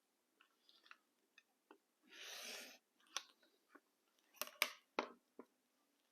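Fabric being cut diagonally into triangles and handled: scattered small clicks and taps, with one brief scraping cut about two seconds in and a few sharper clicks after it.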